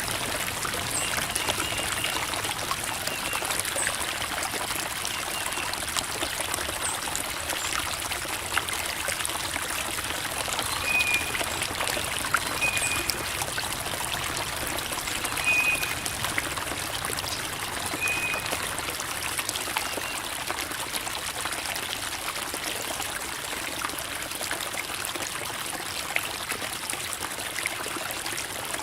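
Creek water babbling and trickling over rocks, a steady splashing rush with small droplet clicks. A few short, high chirps come and go around the middle.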